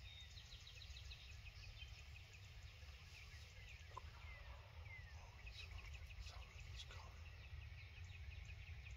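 Faint chorus of small birds chirping and calling, with many short whistled notes that drop in pitch, over a steady low background rumble.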